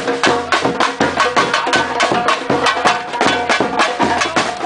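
Samba batucada drumming in a fast, steady groove: dense, sharp hand-drum strokes over a deep drum pattern that repeats about twice a second.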